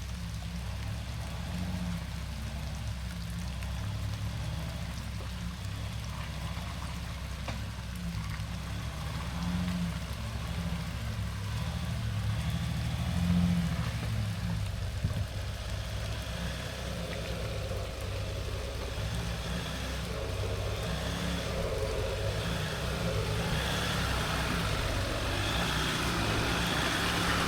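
Built diesel Jeep Gladiator's 3.0-litre V6 engine working at low speed as the truck crawls up a rocky trail obstacle, its pitch rising and falling with the throttle. It gets louder toward the end.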